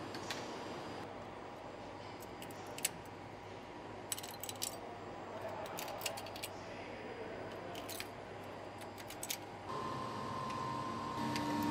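Sharp metallic clicks and scrapes as a hand tool breaks lattice support structures off a 3D-printed metal part, over a steady low factory hum. About ten seconds in, a louder steady machine hum with a clear tone comes in, from a blasting cabinet.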